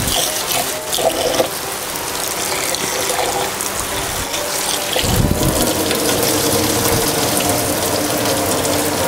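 Tap water running into a glass bowl of rice in a stainless steel sink while a hand swishes and rubs the grains to rinse them. Near the end the bowl is tipped and the cloudy rinse water pours out into the sink.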